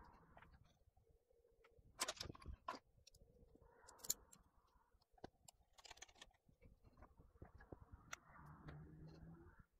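Faint clicks and rustles of hands working inside an open laptop with a screwdriver, small plastic-and-metal parts being handled; a few sharp clicks come about two seconds in and another about four seconds in.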